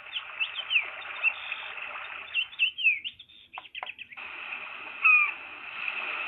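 Recorded birdsong played through a sunrise alarm clock's small built-in speaker: many quick chirps over a hissy background, used as one of its wake-up sounds. The sound breaks off with a couple of clicks a little past three seconds in, then resumes with a louder falling call about five seconds in.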